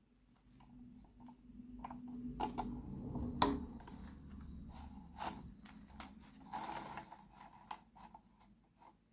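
Small plastic toy kitchen pieces being handled: an irregular run of light clicks, taps and scrapes, with a brief rustle about two-thirds of the way through.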